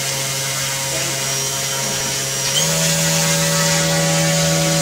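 Small electric motor spinning a propeller on a thrust-test stand, running with a steady motor tone; a little past halfway the pitch steps up as the motor speeds up.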